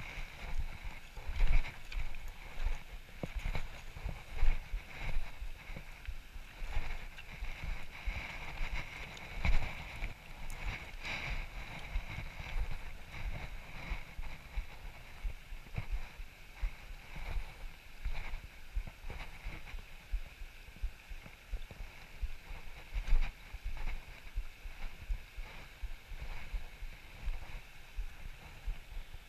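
Steady rush of river water over rocks, with wind buffeting the microphone and irregular thumps of footsteps on loose stones.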